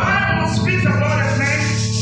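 Electric keyboard playing sustained chords with steady bass notes, with a voice over the music.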